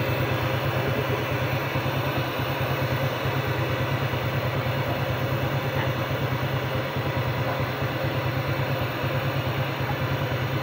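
Workshop air compressor running steadily, a low pulsing hum, supplying air for suction that draws the dirty carbon-cleaner liquid out of the cylinders through the spark-plug holes.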